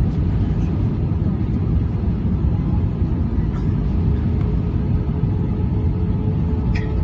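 Jet airliner cabin noise: a steady low rumble of engines and airflow, with a faint steady hum above it and a few small clicks.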